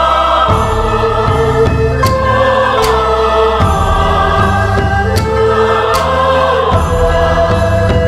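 Background music: held melodic notes over sustained bass tones, with a few sharp percussive hits.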